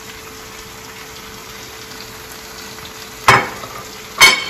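Red mullet fillets in tomato sauce sizzling gently in a frying pan, with a faint steady tone under the sizzle. Two sharp clicks, about three and four seconds in, are the loudest sounds.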